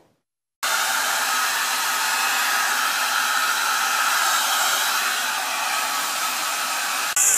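Handheld hair dryer blowing a steady airflow, starting suddenly about half a second in and cutting off just before the end.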